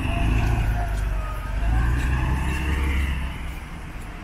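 Road traffic on a wet street: the low rumble of cars and a bus passing close by, strongest about two to three seconds in and easing near the end.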